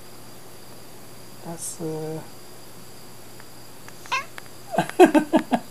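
A sleeping tabby cat answers with a rapid string of short meows near the end, its mouth opening wide, after a person's short call about a second and a half in.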